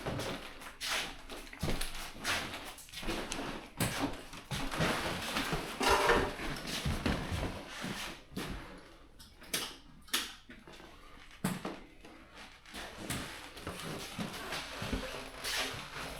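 Scattered knocks, bumps and scraping of things being handled, with the busiest scraping about six seconds in.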